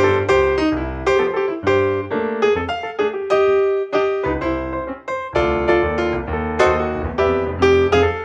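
Piano music: a tune of quick, separately struck notes played on piano.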